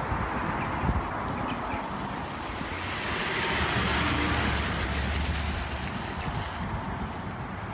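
Road traffic on a wet street: a car passes close by, its tyres hissing on the wet tarmac, swelling about three seconds in and fading by about six seconds.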